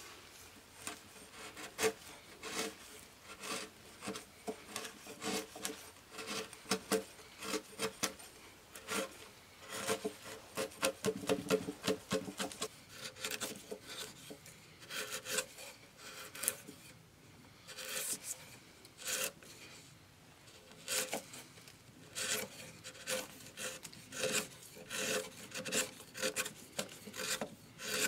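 Steel chisel pushed by hand, paring and scraping wood from the floor and sides of a groove cut in a wooden beam: irregular short scraping strokes in quick runs, with a couple of brief pauses.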